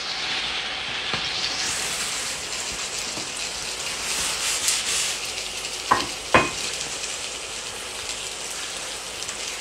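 Chicken wings frying in a pan, sizzling steadily in a thickening soy-and-honey sauce. Two sharp knocks come about six seconds in.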